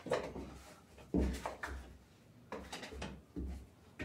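Irregular dull thumps and knocks, about seven in four seconds, of bread dough being divided and handled on a wooden work table.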